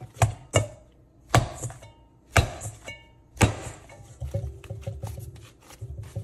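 Dumpling dough being kneaded by hand in a stainless steel mixing bowl: five sharp thuds about a second apart, then quicker, lighter patting.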